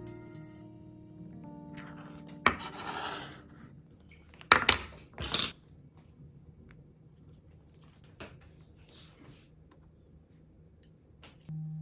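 Kitchen utensils and dishware clattering: a sharp knock with a brief rub after it, then, about four and a half seconds in, the loudest part, two sharp clinks and a short scrape, followed by a few light taps. Soft background music fades out in the first second or so and comes back at the very end.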